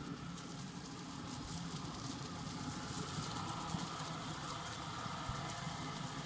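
OSET 16 electric trials bike's motor whining faintly, its pitch rising and falling a little with speed as it rides across the grass, over a steady crackling noise.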